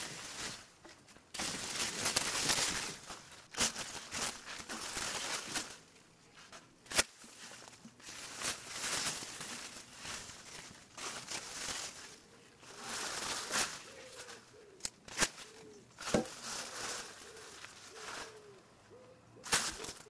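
Bushes and weeds rustling as they are brushed and pushed through, in uneven bursts of a second or more with short pauses between, broken by a few sharp snaps.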